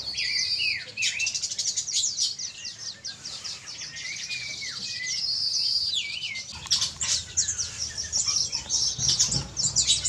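Many small birds chirping and twittering, rapid high chirps overlapping with slurred falling calls. About six seconds in, water splashes as a white-eye bathes in a shallow pool.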